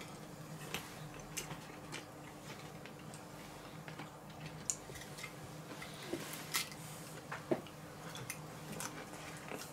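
Faint sounds of a man eating: chewing, and a few light clicks of a metal fork against a plate, over a steady low hum.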